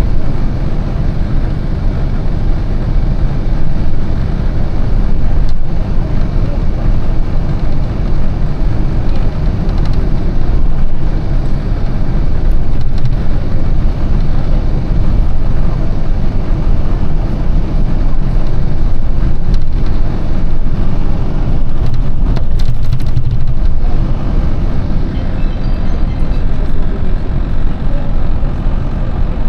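Steady low rumble of a bus's engine and road noise heard from inside the moving bus.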